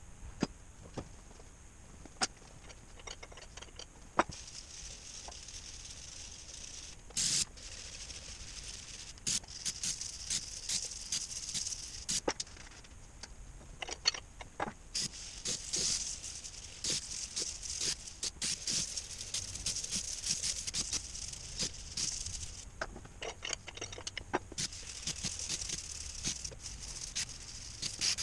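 Hand-tool work on a stripped Isuzu 4BD2T diesel engine block: scattered sharp metal clicks and knocks, and long stretches of scratchy hissing noise through most of the second half.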